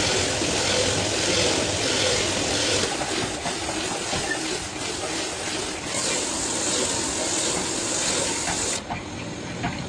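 Loud, steady hissing rush that comes on abruptly and runs unbroken, brightening about six seconds in and easing off near the end.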